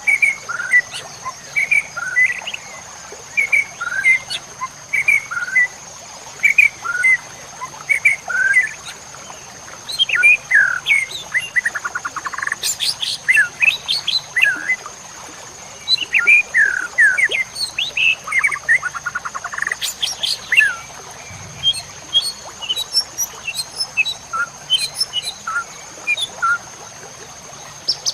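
White-rumped shama (murai batu) singing a varied, busy song of short whistles and chirps, broken by fast rattling trills. A steady, thin, high tone runs underneath throughout.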